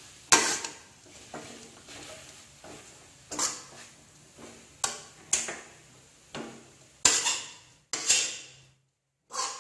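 Metal spatula scraping and knocking against an aluminium wok as a dry shredded filling is stir-fried. It makes a run of irregular scrapes and clanks, about ten in all, some with a short metallic ring.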